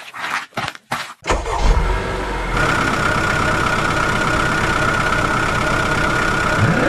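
Engine-start sound effect: several short choppy cranking bursts, then the engine catches about a second in and runs steadily. A constant high whine joins a little later.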